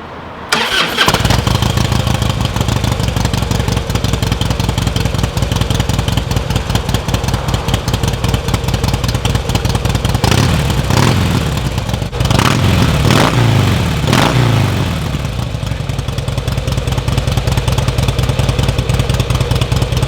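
Harley-Davidson Softail V-twin engine cranking and catching about half a second in, then idling with a few throttle blips around the middle before settling back to idle. It starts and runs now that a replacement relay has brought its fuel pump back to life.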